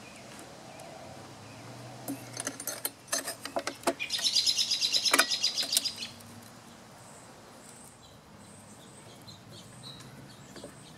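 A bird's rapid, loud chirping trill lasting about two seconds, starting a few seconds in and preceded by a few sharp clicks; fainter bird chirps follow.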